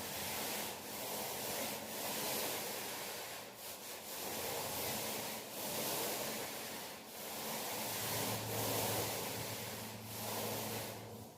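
Paint roller worked back and forth over a wall: a rough rubbing hiss in repeated strokes, swelling and dipping about every one to two seconds.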